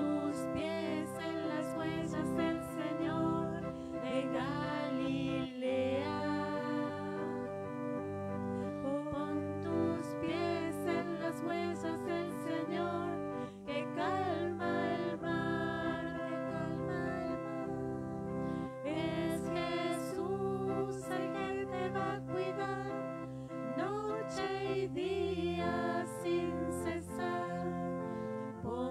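A hymn sung in Spanish over sustained keyboard chords, the voice entering in phrases between held notes.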